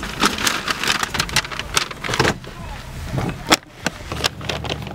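Paper takeout bag crinkling and rustling in a quick run of sharp crackles as it is handled. A loud click about three and a half seconds in is followed by a low steady hum near the end.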